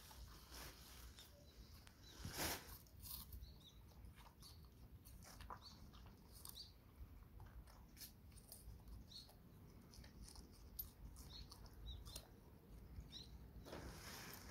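Mixed-breed dog chewing napa cabbage leaves: faint, scattered crunching and crackling, a little louder about two seconds in.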